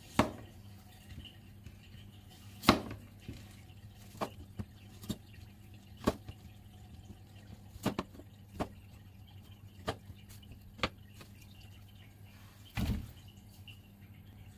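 A ceramic kitchen knife cutting broccoli florets, the blade knocking on a wooden cutting board about a dozen times at uneven intervals, a second or two apart.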